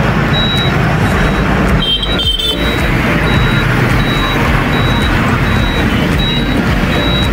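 Truck engine running and road noise heard from inside the cab while driving, with a faint high beep repeating at a steady pace.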